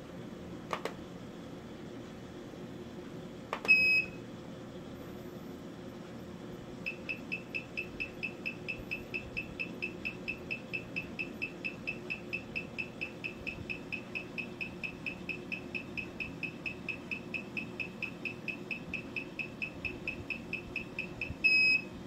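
AK90+ key programmer beeping while it reads an EWS3 immobiliser chip: a single short beep as the read starts, then a fast, even series of short beeps at one pitch, about four a second, ending in a longer beep as the read completes. Two mouse clicks come just before.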